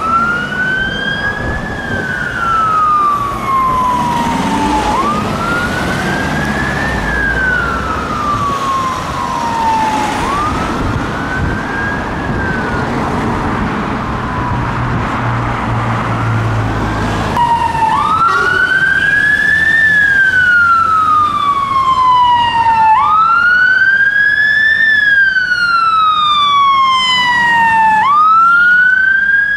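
A UK fire engine's siren sounds a slow wail, each rise and fall taking about five seconds, and grows fainter as the appliance drives away. About two-thirds of the way through, a louder, sharper wail of the same pattern takes over: the siren of a London Ambulance Service Mercedes-Benz Sprinter ambulance responding.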